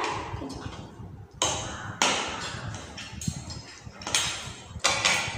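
Metal forks clinking and scraping against ceramic plates of noodles, with several sharp clinks about a second apart.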